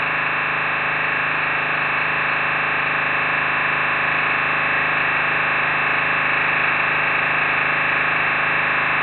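Dense, steady electronic drone of many held tones with a fast flutter underneath, generated by a MaxMSP patch that sonifies the live video feed of the painting.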